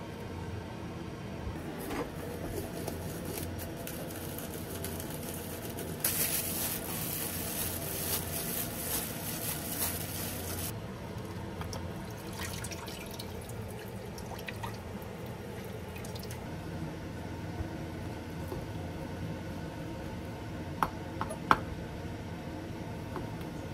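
Water pours into a frying pan of fish-cake sheets in a kitchen sink for about four and a half seconds, then splashes faintly as the wet sheets are handled. Near the end come a few sharp knocks of a knife on a wooden cutting board.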